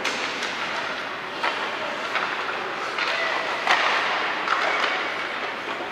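Ice hockey play in a rink: a steady scraping hiss of skates on the ice, with a few sharp clacks of sticks and puck.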